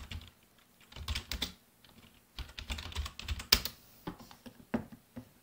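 Typing on a computer keyboard: short runs of keystrokes with pauses between them.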